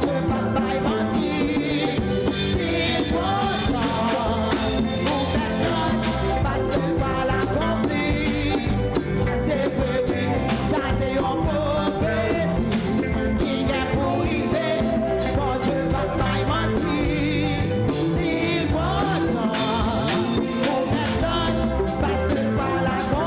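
Church worship band playing a song with a singer over a steady beat.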